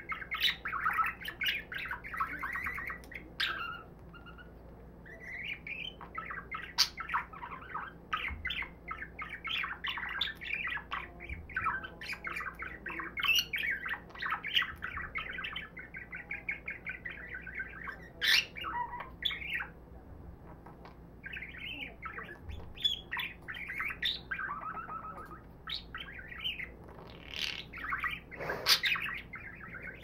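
A budgerigar warbling: a long run of rapid chattering chirps, clicks and short squawks, with brief pauses about four seconds in and again about two-thirds of the way through.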